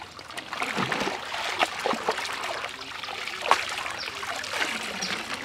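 Water splashing and trickling as pieces of duck meat are rinsed by hand in a plastic basket dipped into pond water, with small splashes and bubbling throughout.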